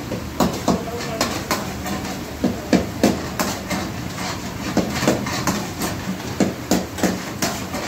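Metal tongs and a steel spatula clanking and scraping against a steel karahi wok as chicken is stirred and tossed: irregular sharp knocks, about two or three a second, over a steady hiss of frying over the gas flame.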